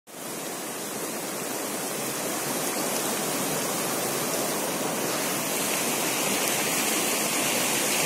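Shallow stream running over rocks and small riffles: a steady rush of water, growing slightly louder toward the end.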